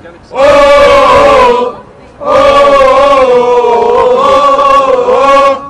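Libyan revolution song being sung in Arabic: two long, drawn-out sung phrases with a short break about two seconds in.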